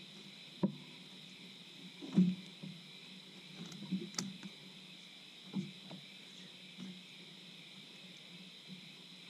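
Steady high chirring of night insects, with several short knocks and bumps from people moving gear in a small boat, the loudest about two seconds in.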